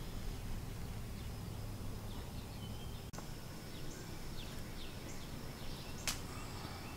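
Quiet outdoor ambience with faint, repeated short high bird chirps through the middle, over a thin steady high whine and low background hum.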